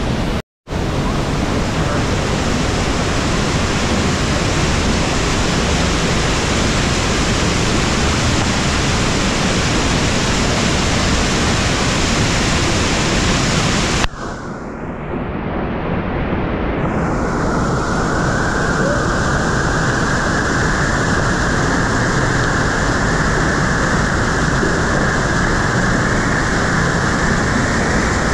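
Waterfall crashing into its pool: a loud, steady rush of falling water, broken by a brief dropout just after the start. About halfway through the sound cuts to a duller rush without the high hiss.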